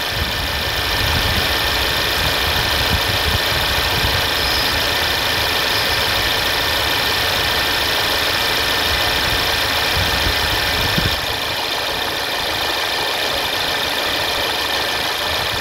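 Mercedes-Benz C200's turbocharged four-cylinder petrol engine idling steadily, heard with the bonnet open, with a light, even ticking in its running. The low rumble drops slightly about eleven seconds in.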